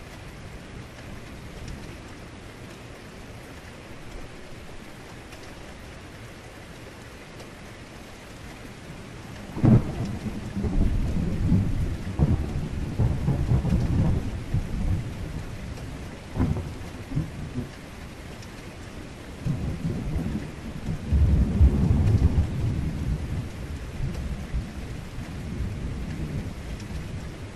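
Heavy rain falling steadily, with deep thunder. About ten seconds in a sharp crack of thunder breaks into rolling rumbles lasting several seconds, a couple of shorter cracks follow, and a second long low rumble rolls in a few seconds later.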